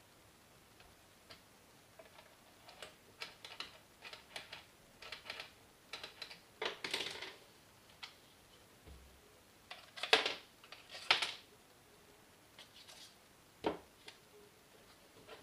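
Parts of an ASG Scorpion EVO airsoft gun clicking and scraping as it is taken apart by hand: irregular small clicks, with a few louder clicks and scrapes about halfway through.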